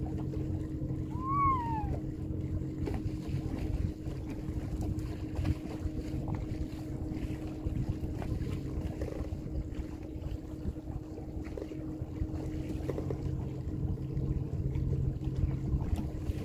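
A boat's motor running steadily with a constant hum over a low rumble, with some wind and water noise. About a second in there is a short high rising-and-falling squeak.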